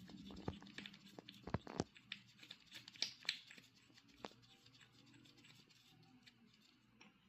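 Faint scattered clicks and light scraping of a motorcycle chain riveting tool's metal parts being handled and screwed together, thinning out over the second half.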